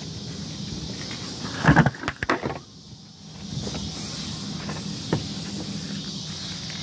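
Car taillight assembly being worked loose and pulled out of its housing by hand. About two seconds in there is a loud cluster of plastic clunks and scrapes, and a single click a few seconds later, over a steady low background hum.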